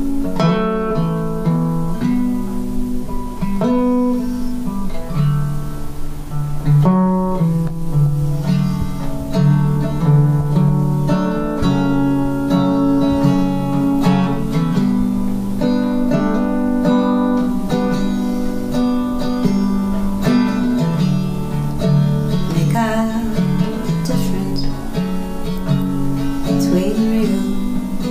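Solo acoustic resonator guitar, capoed, playing a steady repeating pattern of picked and strummed chords.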